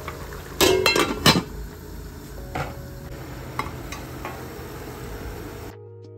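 Stainless steel cooking pot clanking: a quick cluster of sharp metal knocks about a second in, then a few lighter taps, over a steady sizzle of meat frying with frozen ginger-garlic paste. Background music cuts in abruptly near the end.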